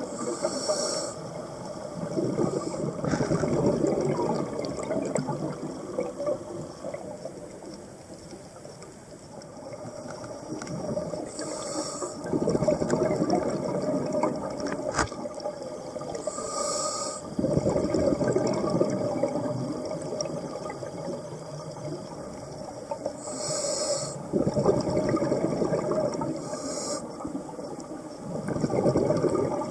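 Scuba diver breathing through a regulator underwater. Each breath is a short hiss on the inhale, then a few seconds of bubbling exhale, repeating about every five to six seconds.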